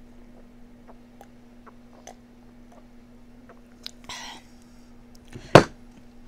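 Faint chewing and mouth clicks while eating, a short noisy rustle about four seconds in, then one loud sudden sound near the end. A steady low hum runs underneath.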